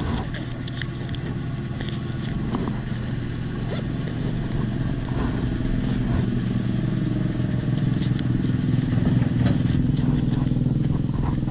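Benelli Motobi 200 Evo motorcycle engine idling steadily, growing a little louder toward the end. Over it, paper banknotes and a leather wallet being handled make light rustling and clicking.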